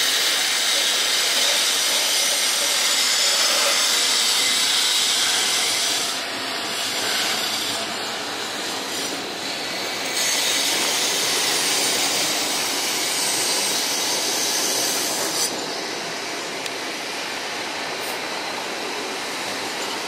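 Low-floor streetcars passing close by on street track: their steel wheels run on the rails with a loud, high hiss and a scraping, squealing edge. The sound drops and changes about six seconds in, again about ten seconds in and about fifteen seconds in.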